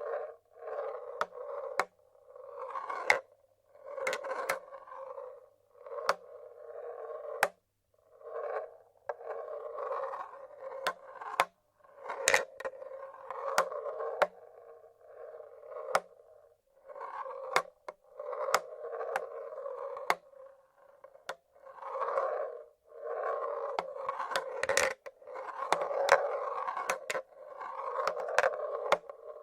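Marbles rolling along the tracks of a wooden marble-run machine, in runs of a second or two with short pauses between, and sharp clacks as marbles drop and knock against the wood. The loudest clack comes a little before the last few seconds.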